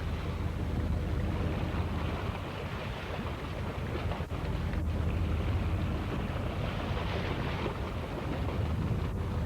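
A boat's engine running steadily under way, a continuous low hum, with wind buffeting the microphone.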